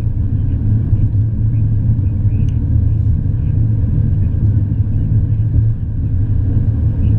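Holden Captiva heard from inside the cabin while cruising: a steady low rumble of road, tyre and engine noise, with one faint tick about two and a half seconds in.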